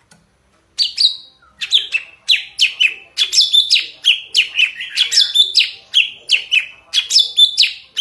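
Caged golden-fronted leafbird (cucak ranting) singing a loud, fast run of sharp, downward-sweeping whistled notes, about three a second, starting about a second in.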